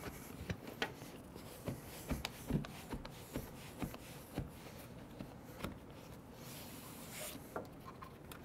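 A soft-top window's fabric and plastic lower retainer being worked by hand into the body rail: faint rustling with many small clicks and taps.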